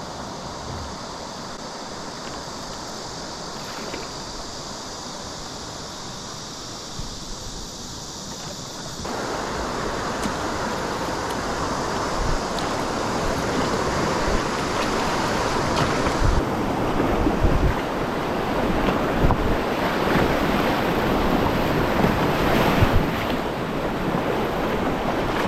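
Rushing river water with wind buffeting the microphone. The noise changes abruptly twice, growing louder and fuller about a third of the way in.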